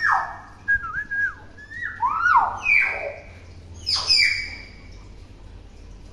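Common hill myna giving a string of loud whistles, most of them sliding down in pitch, with a wavering held note about a second in and a sharp call about four seconds in.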